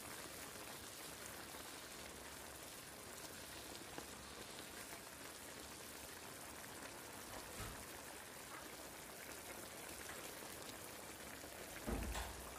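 Pork menudo simmering in a pan, a faint steady bubbling hiss like light rain. A few soft ticks, and near the end a short, louder low thump as sliced hotdogs are tipped in from a bowl.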